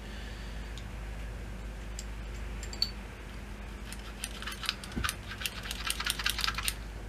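Light metallic clicking and clinking of small injection-pump parts handled by hand on the bench. A few scattered clicks at first, then a busy, irregular run of clicks from about four seconds in.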